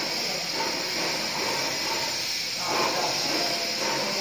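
A brown combination (zebra) blind being opened by pulling its bead chain, heard over a steady hiss.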